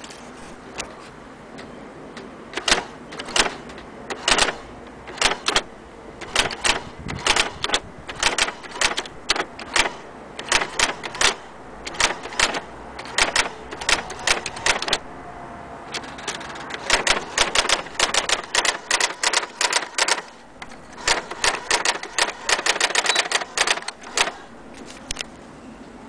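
Brother AX-430 electronic daisywheel typewriter typing: a long string of sharp print clacks as keys are pressed. They come irregularly at first, then in quicker rapid runs in the second half.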